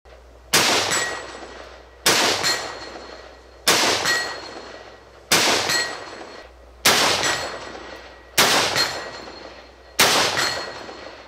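Sharps Bros. Livewire AR-15 semi-automatic rifle in .224 Valkyrie, fitted with a muzzle brake, fired seven times at a steady pace about a second and a half apart. Each sharp report is followed by a trailing echo and a faint ring.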